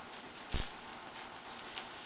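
Light, irregular ticks and clicks from soldering stained glass, with one sharper knock about half a second in.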